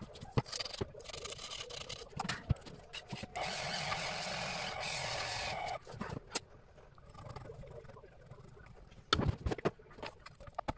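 Mini-lathe's electric motor switched on briefly, spinning the empty three-jaw chuck, with a steady whirring that starts and stops abruptly after about two seconds. Light clicks and knocks come before it, and a short cluster of knocks follows near the end.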